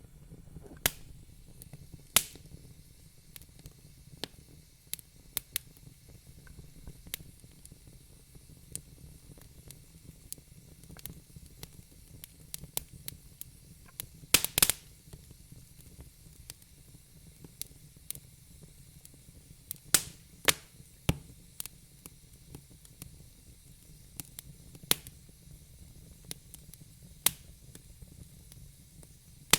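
Wood fire burning in a fireplace, crackling with sharp pops at irregular intervals over a faint low hiss. A quick cluster of the loudest pops comes about halfway through.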